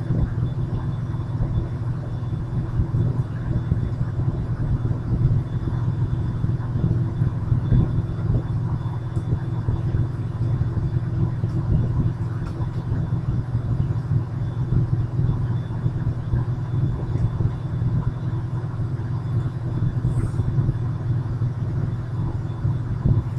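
Steady low rumbling hum with no distinct events.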